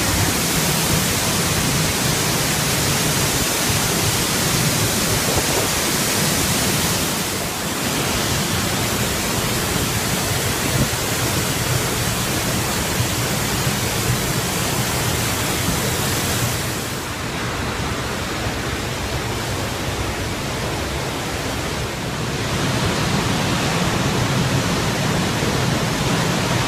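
Steady roar of a waterfall heard close up, a dense rushing hiss across all pitches. The high part of the hiss softens for a few seconds about two-thirds of the way through.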